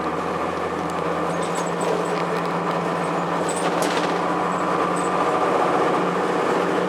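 Cummins ISC inline-six diesel engine of a 2002 Blue Bird CS school bus running steadily, growing slightly louder after the middle.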